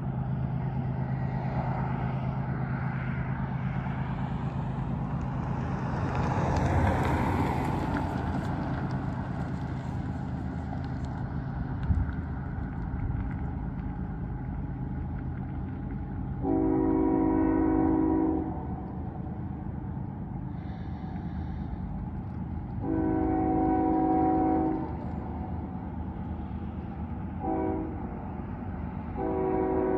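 Locomotive air horn of an approaching train sounding the grade-crossing signal: two long blasts, a short one, then a fourth long one beginning near the end. Before the horn, a car passes over a steady low hum.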